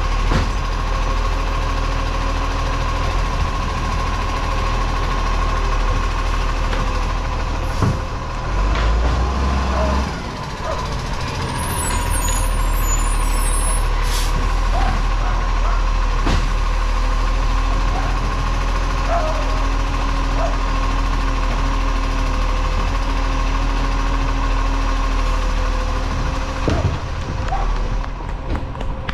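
Side-loading garbage truck running close by, its engine a steady low rumble under a steady whine, while its automated arm lifts and tips green-waste wheelie bins, with several sharp knocks and bangs spread through.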